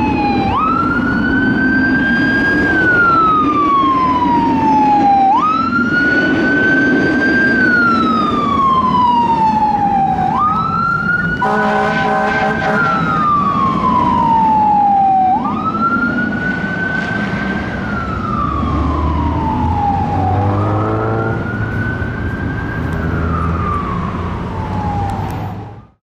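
Fire rescue truck siren wailing: each cycle jumps up quickly, then falls slowly, repeating about every five seconds. A truck's horn blasts briefly about halfway through and again a few seconds before the end. The sound fades out just before the end.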